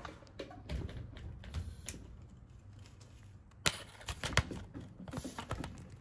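Irregular plastic clicks and knocks as a smoke-detector test pole's dispenser cup is pushed up over a ceiling smoke detector, with two sharp, louder clicks near the middle.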